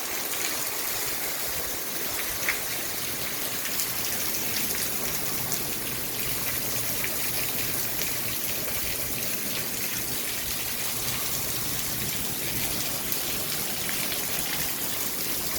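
Heavy rain falling steadily in a thunderstorm, a constant hiss with scattered sharp drop hits.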